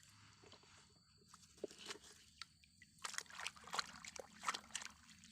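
Faint, scattered clicks and rustles of small toys and their load being handled, livelier in the second half.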